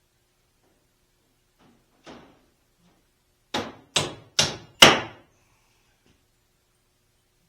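Hammer blows on wood: a light tap about two seconds in, then four hard strikes about half a second apart, the last one the loudest.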